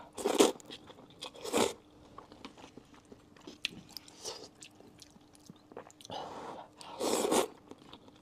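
Close-up eating of sweet potato starch noodles with chopsticks: loud wet slurps of noodles about half a second in, at a second and a half and again near the end, with soft chewing and mouth clicks between.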